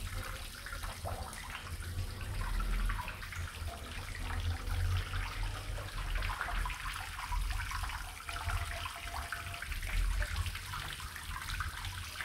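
Water sloshing and splashing around a person lying in it, a constant irregular trickle-and-slap sound, over a steady low rumble.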